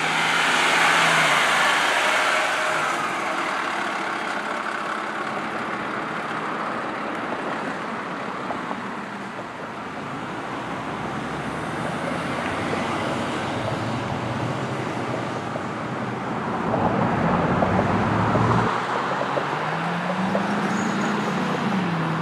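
Fire ladder truck and road traffic driving by. The truck passes loudly in the first couple of seconds, then there is steady traffic noise, and an engine note rises and falls near the end. No siren is heard.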